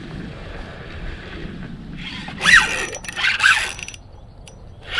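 Fishing reel drag giving line in two squealing pulls about a second apart, the pitch rising and falling each time, as the lure snags on a submerged log.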